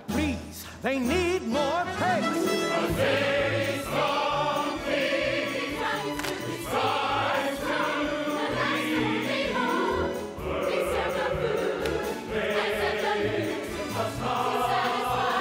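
Musical-theatre ensemble number: a chorus singing over an instrumental accompaniment with a steady low beat.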